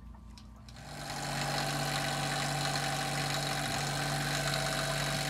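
Small marine diesel generator engine running steadily with an even hum, coming up about a second in.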